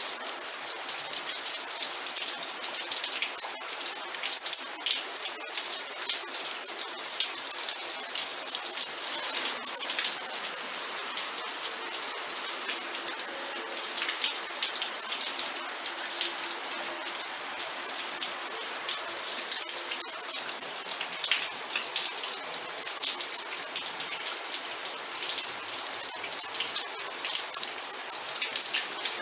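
Steady rain with a dense patter of individual drops striking a surface, mostly a high, even hiss with no rumble.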